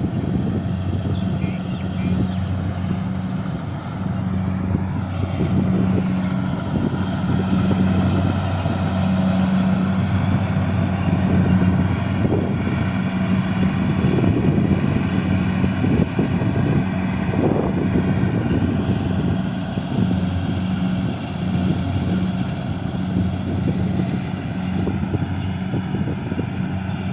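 Kubota rice harvester running steadily at work: a constant engine hum under a rough mechanical noise.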